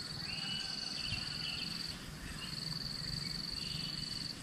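Insects trilling in one steady high-pitched buzz that breaks off briefly about two seconds in and again near the end. A few short rising whistles and chirps sound over it, the first right at the start.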